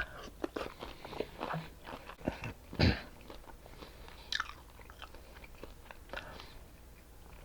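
A person chewing and biting seafood close to the microphone: a string of wet clicks and crunches, the loudest near three seconds in.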